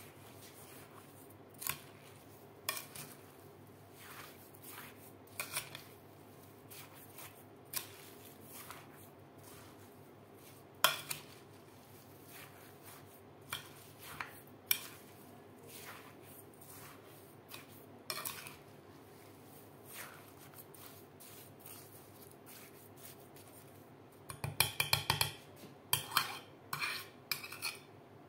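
Metal spoon clinking and scraping against a glass bowl while stirring sugar into diced watermelon rind. The clinks come irregularly, with a quick run of them near the end.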